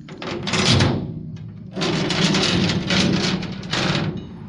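Steel tie-down chain rattling and clanking against a trailer's metal deck as it is unhooked and handled, in two bursts: a short one near the start and a longer, clattering one from about two seconds in.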